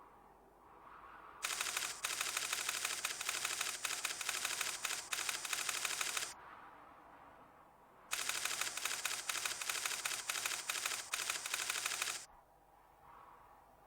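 Rapid typewriter-like mechanical clatter, fast even clicks in two runs of about four to five seconds each, with a pause of about two seconds between them.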